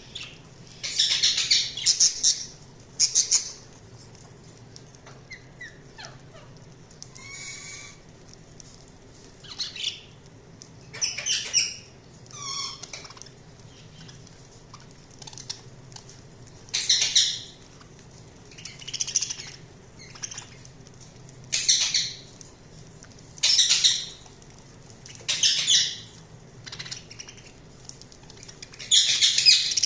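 Budgerigar chirping and warbling in short bursts every couple of seconds, some calls sliding in pitch.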